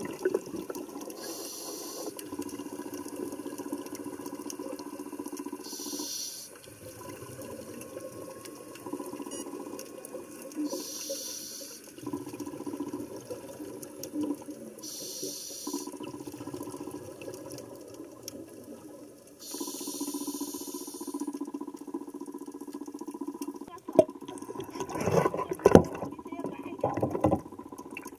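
Muffled underwater sound of sea water around the diver and camera, with five short hissing rushes of bubbles at intervals of about four to five seconds. Near the end come a few loud splashes as the camera breaks the surface.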